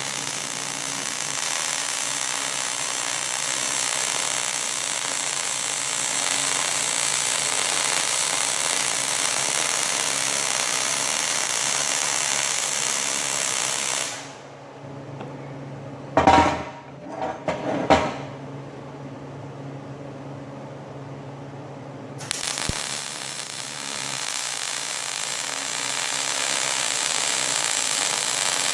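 A power tool running steadily on metal for about fourteen seconds, then stopping. A few sharp knocks follow, and the tool starts up again about twenty-two seconds in.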